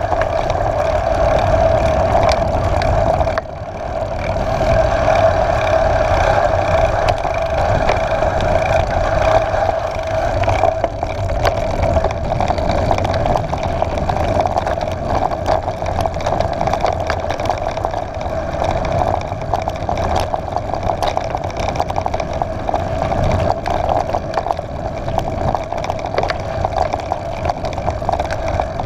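A mountain bike rolling fast on a gravel track: wind rushing over the bike-mounted camera's microphone, knobby tyres crunching and rattling over stones, and a steady hum. The noise drops briefly about three seconds in.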